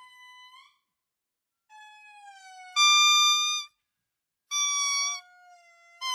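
Indri singing: a run of long, pitched calls, each under a second, some sliding down and others rising at their ends. Softer notes alternate with loud held ones, and the loudest comes about three seconds in.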